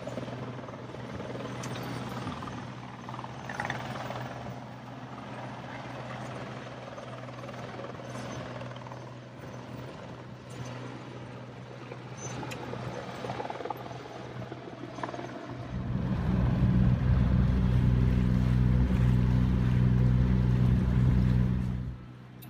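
Boat engine running with a steady low hum. About two-thirds of the way through it swells into a much louder, deeper rumble for several seconds, then drops back sharply near the end.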